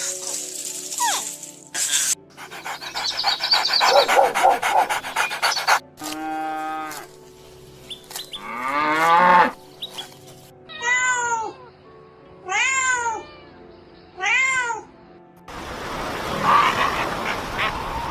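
Domestic cat meowing repeatedly: several separate meows, the last three short, each rising and then falling in pitch, about a second and a half apart. Other short, unidentified animal sound clips come before and after.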